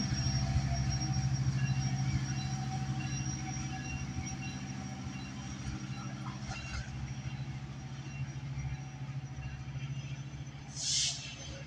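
Metrolink EMD F125 diesel locomotive running with a steady low hum as the train pulls away, slowly fading as it recedes. A short hiss comes near the end.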